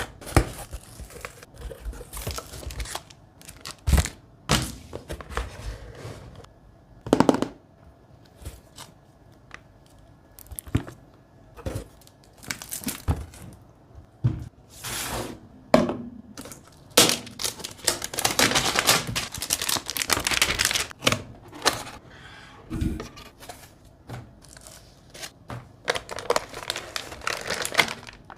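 Graphics card packaging being opened and handled: cardboard and plastic tearing and crinkling, with the box and its parts being slid, scraped and set down in irregular thunks and clicks.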